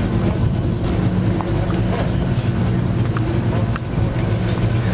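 Engine running steadily at a constant speed, a low even hum, with a few light clicks over it.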